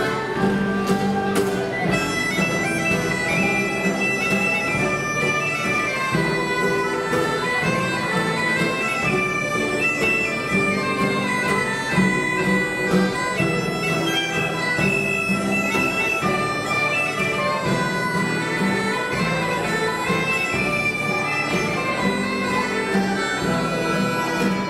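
Provençal folk dance music: galoubets (three-hole pipes) playing a shrill melody together over tambourin drums and a strummed acoustic guitar.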